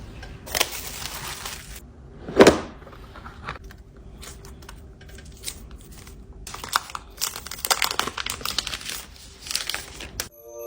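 Smartphone packaging being handled and opened: crinkling and tearing of wrap and cardboard, with scattered clicks and one sharp knock about two and a half seconds in. A chime begins right at the end.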